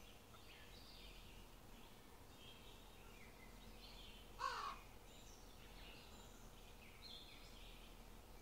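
Faint birdsong ambience, small birds chirping throughout, with one louder, short bird call about halfway through.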